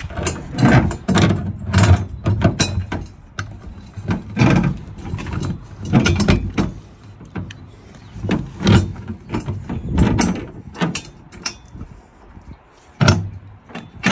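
A metal spare-tire carrier mount being handled and fitted against a van's rear door: irregular clunks, knocks and rattles as it is shifted and pressed into place.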